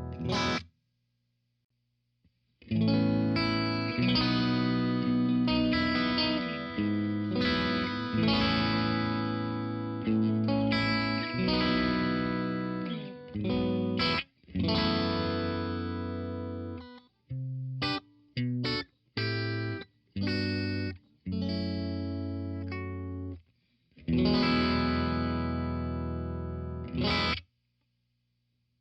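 Electric guitar played through a Blackstar Studio 10 6L6 valve amp with some overdrive. Ringing chords are cut off abruptly, with a run of short stabbed chords in the middle and a long ringing chord near the end.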